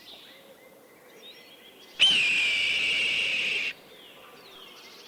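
A falcon calling: one long, harsh scream held at a steady pitch for nearly two seconds, starting about two seconds in and cutting off suddenly. Faint chirps of small birds are heard beneath it.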